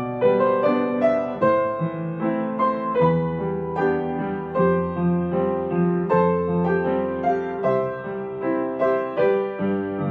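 Gentle piano music: a steady run of soft notes, each one fading after it is struck.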